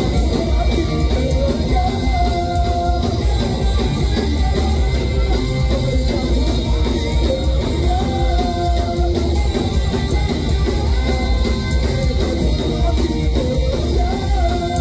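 Rock band playing live and loud through a club PA: electric guitars, bass and drums with sung vocals over the top, recorded from within the crowd.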